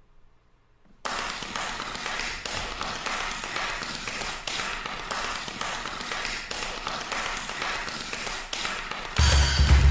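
Audience applauding, a dense steady crackle of many hands that starts suddenly about a second in. Near the end loud opening music with heavy drums cuts in over it.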